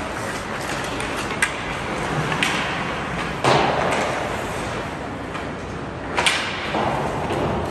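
Ice hockey play in an indoor rink: skates scraping and sticks clacking on the ice, with sharp stick and puck knocks and two louder bangs against the boards, about three and a half and six seconds in.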